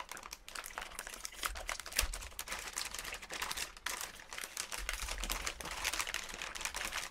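Metallised anti-static shielding bag crinkling as it is handled and opened, a dense run of small, sharp, irregular crackles.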